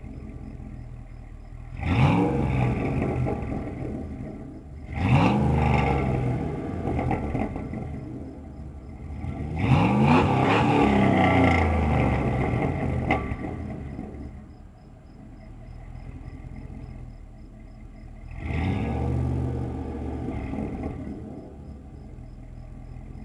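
1999 Dodge Dakota's 318 (5.2 L) V8 running through a Flowmaster 40 Series muffler, set up single in, dual out, with a gutted catalytic converter. It idles and is revved four times: short blips about 2 and 5 seconds in, a longer rev held from about 10 to 13 seconds, and another about 18 seconds in. Each rev rises in pitch and falls back to idle.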